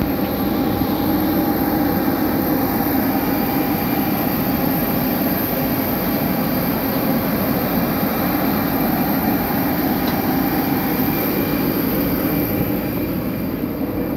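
Steady roar of jet aircraft and ground equipment running on an airport apron, with a constant high thin whine over a low hum.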